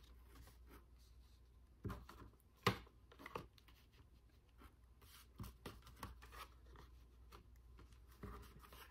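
Tarot cards being laid down one by one on a cloth-covered table: faint, scattered slides and soft taps of card on cloth, the sharpest tap about three seconds in.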